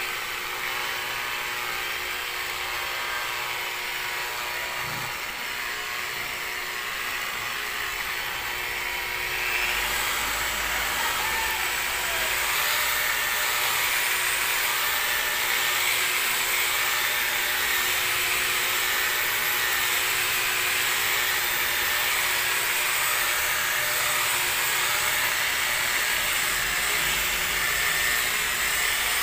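Handheld electric car polisher running steadily with its foam pad pressed on painted bodywork, buffing the paint with rubbing compound. The motor's whine gets louder about ten seconds in and holds there.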